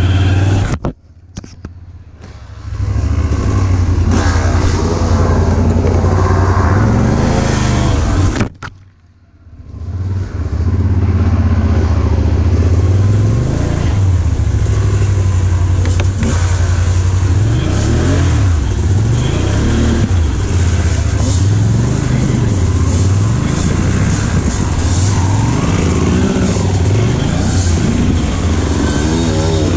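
ATV engine running while riding through mud, its pitch rising and falling over and over in the second half as the throttle is worked. The sound drops out briefly twice, about a second in and about nine seconds in.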